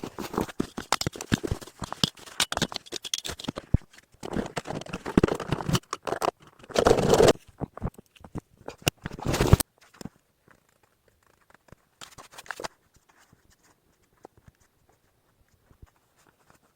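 Quick crunches, knocks and rustles of hands-on work, dense for about ten seconds, then only scattered faint clicks.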